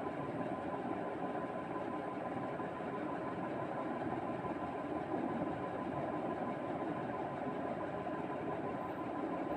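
Steady mechanical hum from a running motor, with a faint steady whine on top.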